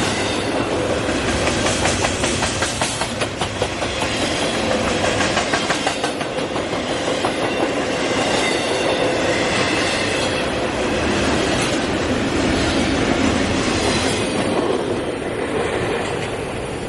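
Freight train cars rolling past, their wheels clicking steadily over rail joints. The high end of the noise thins out about three-quarters of the way through.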